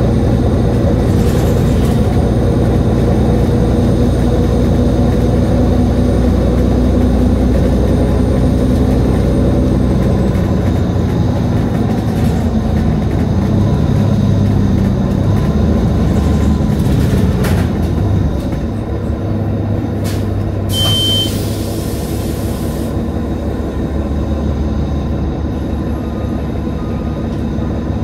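Nova Bus LFS city bus running: a steady drone of drivetrain and road noise that eases off about two-thirds of the way through, then a sharp hiss lasting about two seconds with a brief high beep at its start.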